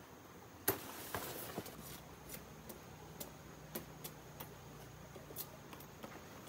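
A sharp snap under a second in, then scattered light clicks and cracks of twigs, branches and dry plant litter being disturbed as someone moves through undergrowth.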